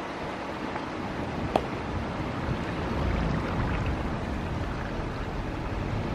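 Steady outdoor rushing noise with wind buffeting the microphone, the low rumble growing stronger from about three seconds in. A single sharp click about a second and a half in.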